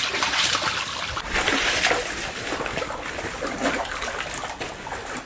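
A hooked catfish thrashing at the pond's surface: continuous rapid, irregular splashing and slapping of water.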